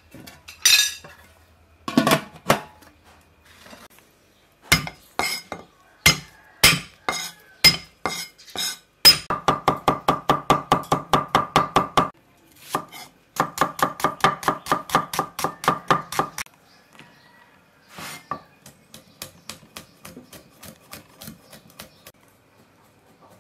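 Steel cleaver chopping on a wooden board: single chops at first, then two fast runs of about six strokes a second while mincing garlic, with lighter chops near the end. A few clinks and knocks come in the first two seconds.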